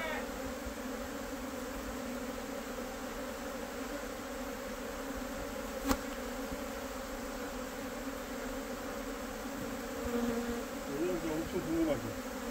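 A swarm of Korean native honeybees (Asian honeybees) buzzing in a dense, steady hum around their box hive as the colony swarms out. A single sharp click about halfway through.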